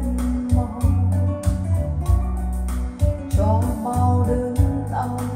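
A song with guitar, a steady beat and a heavy bass line, played through B&W floor-standing hi-fi loudspeakers as a listening test.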